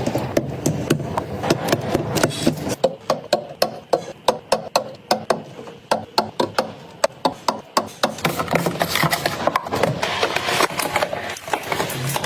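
Kitchen items being handled, with a quick run of light knocks and clacks of hard objects against one another and on hard surfaces, about three or four a second. Near the end these give way to rubbing and rustling.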